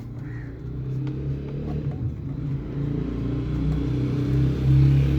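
A low, steady mechanical hum that slowly grows louder toward the end, like a running engine.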